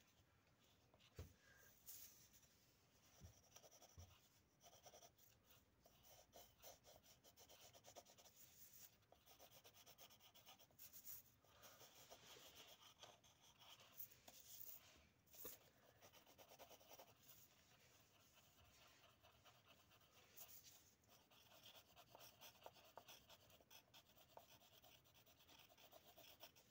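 Faint scratching and rubbing of graphite pencils on paper as two people draw and shade, with a few light taps on the table.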